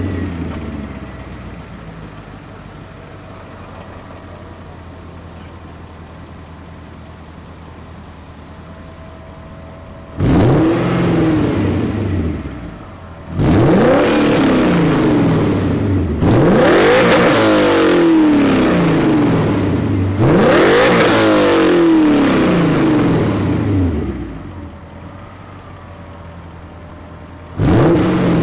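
BMW E39 M5's S62 V8 through a muffler-delete exhaust on the stock tune, idling just after start-up as its revs settle. From about ten seconds in it is given a series of free revs, each climbing and falling back. It drops to idle for a few seconds and is revved again near the end.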